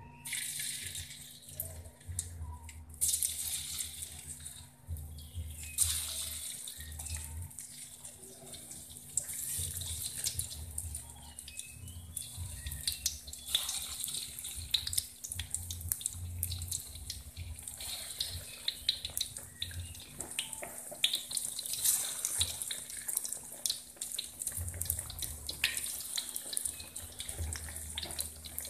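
Batter-coated eggplant slices deep-frying in hot oil in a wok: a steady sizzle with irregular crackles and spits as more slices are added.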